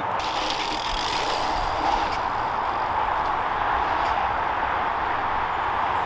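Steady rolling noise of a dirt jump bike's knobbly tyres running over a dusty, bumpy dirt track.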